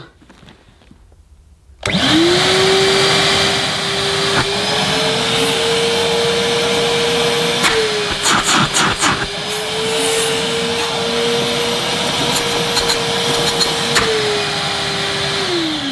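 Numatic George wet-and-dry vacuum cleaner's 1000-watt suction motor switched on about two seconds in, spinning up to a steady high whine over a rush of air. Its pitch dips briefly in the middle with a few clicks, then the motor is switched off near the end and the whine falls as it runs down.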